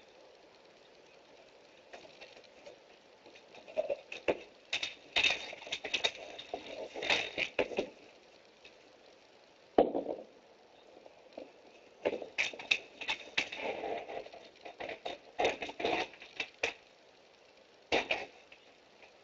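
A wolfdog pawing at a sliding glass door: bursts of claw scratches, clicks and door rattling, with one sharper knock about ten seconds in, picked up by a Nest security camera's microphone.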